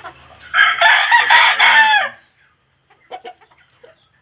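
Rooster crowing once, a loud call of about a second and a half starting about half a second in.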